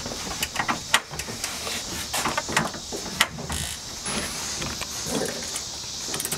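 Irregular small metal clicks and knocks from hands working a brake-line fitting on a hydraulic handbrake, over a steady high hiss.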